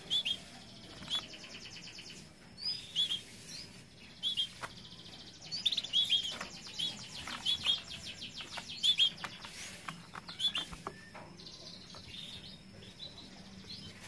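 Domestic canaries chirping in a cage: short, high chirp calls repeated again and again, with fast trilled runs mixed in, busiest in the middle.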